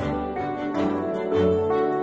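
Intro background music: sustained instrumental notes over a steady bass and beat.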